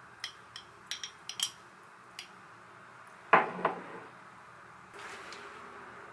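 A metal spoon clicking and clinking against glass while minced garlic is scooped from a jar onto pork in a glass dish: a few light clicks, then two sharp ringing clinks about three and a half seconds in. A faint steady hiss comes up near the end.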